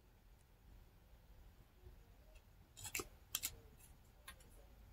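Near silence, broken by a few faint clicks and taps about three seconds in and again a little over four seconds in, from product packaging being handled.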